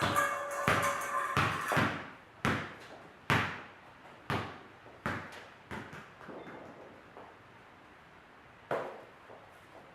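Sharp knocks close to a microphone. A quick run of them comes over a steady ringing tone in the first two seconds, then single knocks about a second apart that grow weaker, and one more near the end.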